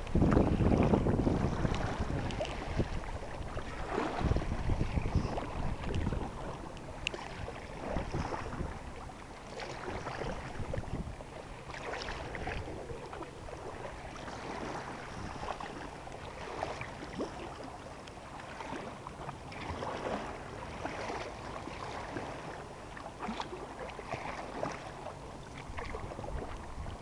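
Paddle strokes splashing and water sloshing around a Sevylor K2 Pointer inflatable kayak on open lake water, with wind buffeting the microphone, heaviest in the first few seconds.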